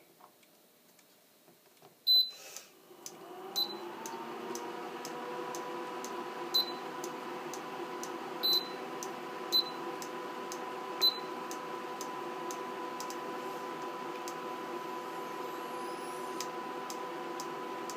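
Portable induction cooktop beeping as its touch controls are pressed, about six short beeps over the first eleven seconds. From about three seconds in it runs with a steady electrical whine that rises briefly in pitch and then holds, over its cooling-fan noise, as it heats the pan.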